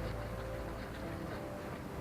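Background music with held notes over a steady low rumble.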